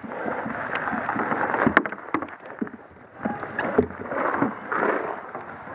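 Paintball game at close quarters: a few sharp pops of paintball shots, the clearest about two seconds in, over rustling and knocking against a plastic barricade.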